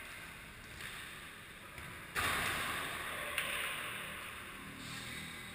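Echoing ambience of a futsal game on an indoor court: player movement and play noise in a large hall. About two seconds in, a sudden rise of hiss lasts a couple of seconds, with one sharp knock partway through.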